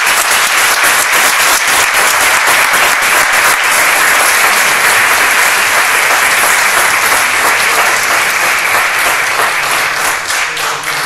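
Audience applauding, dense steady clapping from many hands that starts to die away near the end.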